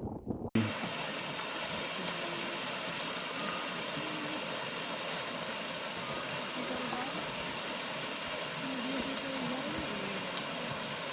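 Steady rushing of water, an even hiss that starts abruptly about half a second in.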